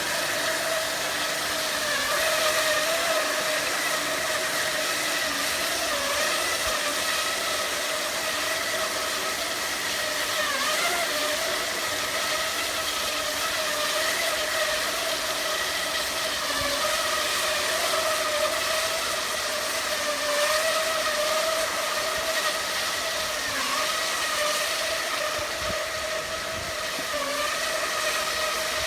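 Hydraulic concrete wire saw running from its hydraulic power pack: a steady whine that wavers slightly in pitch, over a constant hiss.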